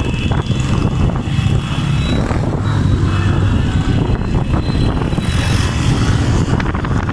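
Motorcycle engines running steadily at road speed with rushing wind noise, as heard from a moving motorbike in a pack of motorcycles.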